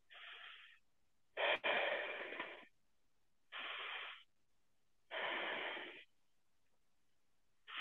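A person breathing deeply and audibly while holding a yoga lunge: four slow, breathy in-and-out breaths of about a second each, with quiet gaps between them. The sound is thin and narrow, as over web-conference audio, with a small click about a second and a half in.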